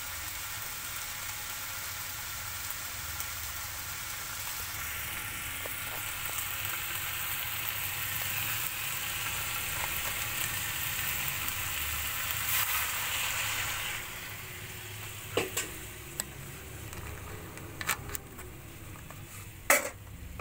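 Vegetables in masala sizzling as they fry in oil in a steel kadai, a steady hiss. About two-thirds through the hiss drops, and a spatula scrapes and clicks against the pan several times as the vegetables are stirred.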